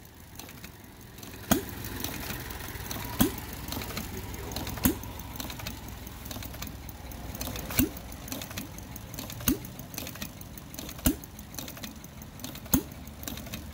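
Homemade 10-cycle engine, built from Briggs & Stratton, air-compressor and Volkswagen parts, running slowly with a low steady mechanical sound and light clicking. It fires with a sharp pop about every second and a half, since a 10-cycle engine fires only once every ten strokes.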